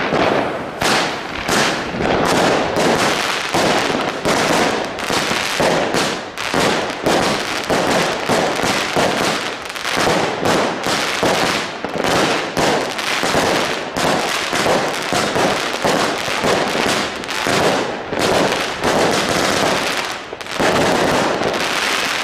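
A consumer fireworks battery (cake) firing a rapid, continuous string of shots and crackling aerial bursts for about twenty seconds, stopping right at the end.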